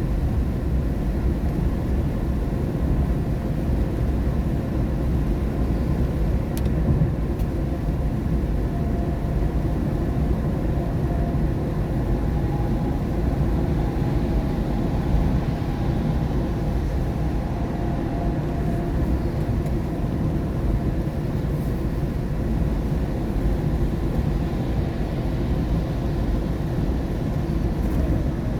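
Steady low rumble of road and tyre noise inside a car's cabin at highway speed on a rain-wet road. A faint whine comes and goes in the middle.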